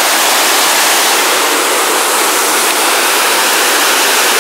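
Waterfall and whitewater rapids pouring over rock ledges: a steady, very loud rushing of water.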